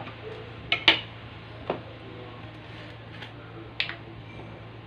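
A metal spoon clinking and knocking against a wooden bowl as sauce is stirred: four or five sharp, short clicks in a few seconds, two close together about a second in. A steady low hum runs underneath.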